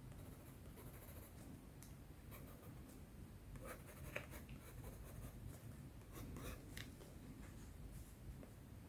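Pencil sketching on sketchbook paper: faint, short scratchy strokes at an uneven pace, a little denser and louder in the middle.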